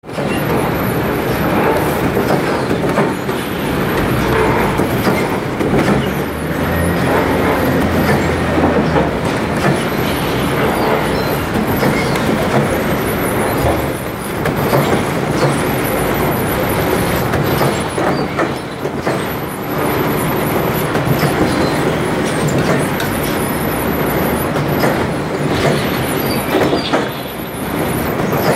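Core veneer composer machine running: a loud, steady mechanical din with frequent short clattering knocks as veneer is fed through, and a faint high whine that comes and goes.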